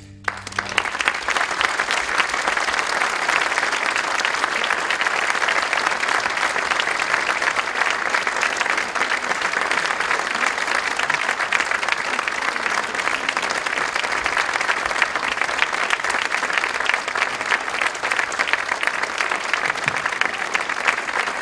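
Concert audience applauding: dense clapping breaks out at once and holds steady.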